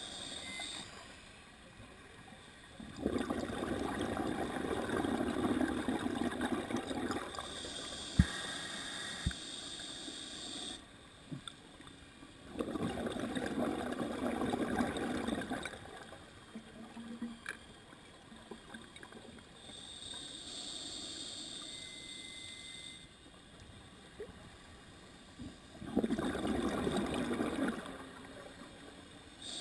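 Scuba diver breathing through a regulator underwater: a hissing inhale, then a few seconds of rushing exhaled bubbles, about three breaths in all. Two sharp clicks come shortly after the first exhale.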